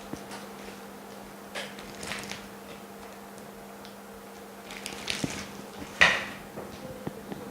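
Scattered light knocks, clicks and short scrapes of tools being handled on a workbench, the sharpest knock about six seconds in, over a steady low electrical hum.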